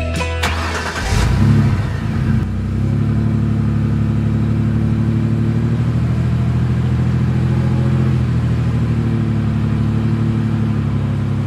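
A vehicle engine revs up briefly about a second and a half in, then runs steadily with an even, low drone.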